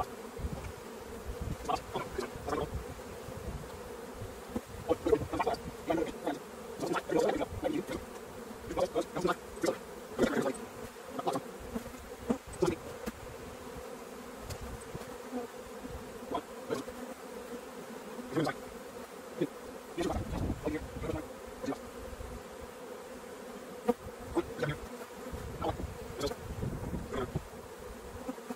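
Many honeybees buzzing steadily around an opened hive, a disturbed colony that is feisty and not happy. Irregular knocks and scrapes of wooden hive boxes and frames being handled with a hive tool are scattered through it.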